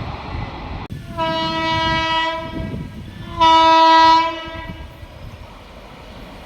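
WAP-7 electric locomotive horn sounding twice, a long blast and then a shorter, louder one, over the running noise of the passing train.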